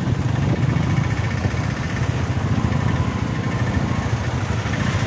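Motorcycle engine running steadily at low speed.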